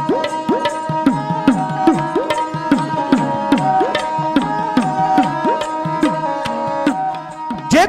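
Dhadi music without singing: dhadd hourglass drums beaten in a steady rhythm, each stroke gliding up in pitch, under a sarangi's steady held tones.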